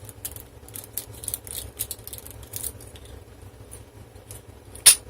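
Lock pick scratching and clicking against the pins of a clear practice lock while it is raked under light tension, many small light ticks. A single louder sharp click near the end as the lock gives and opens.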